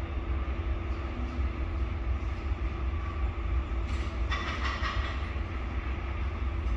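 Steady low background rumble with a faint constant hum, and faint indistinct voices briefly about four seconds in.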